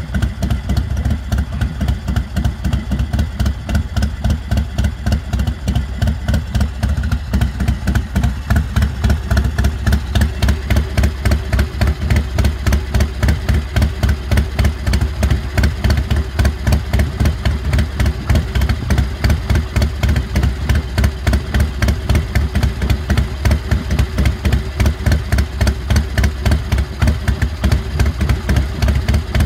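Carbureted 111 cubic inch (1,820 cc) S&S V-twin of an American Ironhorse Lone Star Chopper idling through its 2-into-1 exhaust, with a steady, even loping beat of about three or four pulses a second.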